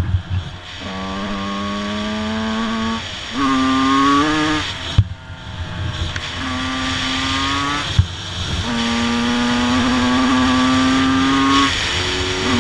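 Two-stroke motocross bike engine running under way, heard from on board: the note climbs slowly in pitch, breaks off and picks up again several times as the throttle is rolled off and reopened. Two sharp knocks come about five and eight seconds in.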